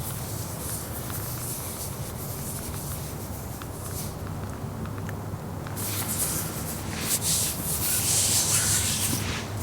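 Hands rubbing together, palms sliding against each other in a dry swishing rub that gets louder about six seconds in.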